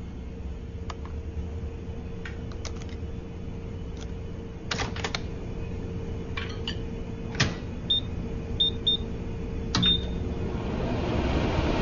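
Microwave oven being handled and set going: a few clicks and knocks, then four short keypad beeps, then the oven starting to run with a rising hum near the end.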